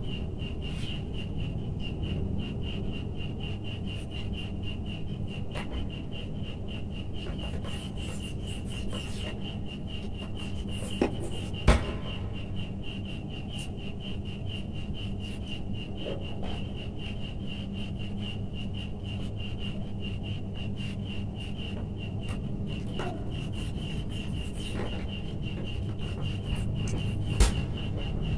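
Steady background hum with a rapid, even pulsing high tone, broken by a few sharp clicks of wires and electrical insulation tape being handled: two close together near the middle and one near the end.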